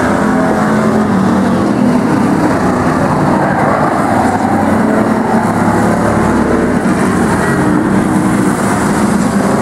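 Engines of a field of old demo cars and pickup trucks racing around a short oval track, running loud and steady, their engine notes shifting up and down as they lap.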